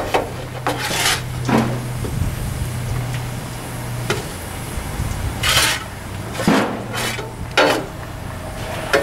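A steel shovel scraping and clanking inside a steam locomotive's smokebox as ash and char are dug out during disposal, in irregular strokes a second or so apart. A steady low hum runs underneath.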